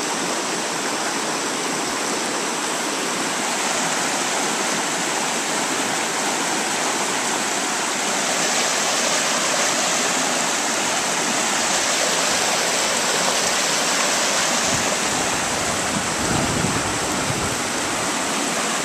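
River water rushing through rocky rapids and white water: a steady, even rush.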